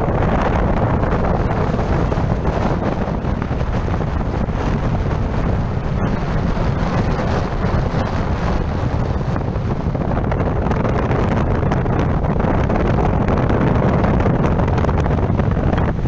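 Steady wind rushing and buffeting on the microphone of a camera riding in a moving vehicle, a loud even rumble with the vehicle's running noise underneath.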